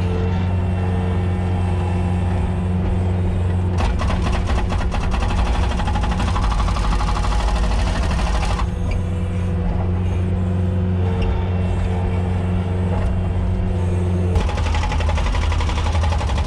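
A motor vehicle engine running steadily. About four seconds in there is a stretch of rapid rattling that lasts about five seconds.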